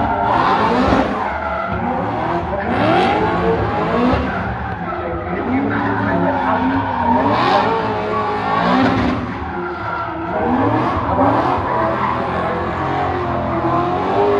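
BMW drift car sliding through a long drift, its engine revving up and down over and over while the rear tyres spin and screech, with the screech surging several times.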